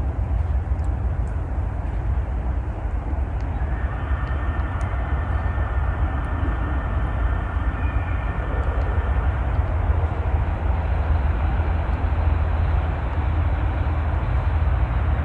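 Steady outdoor rumble and hiss from wind buffeting the microphone over moving river water.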